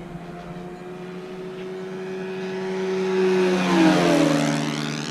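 Radio-controlled model warbird's propeller engine flying past close: it grows louder, then its pitch drops sharply about four seconds in as it passes. A steadier engine drone runs underneath.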